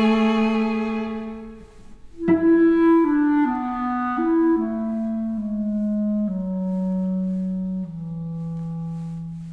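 Classical instrumental music: a held note fading out about two seconds in, then a slow phrase of sustained notes stepping downward.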